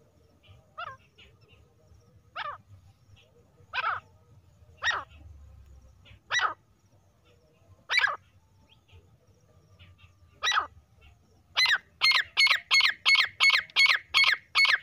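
Female grey francolin calling: short loud notes spaced a second or two apart, then near the end a quickening run of about nine notes, roughly three a second.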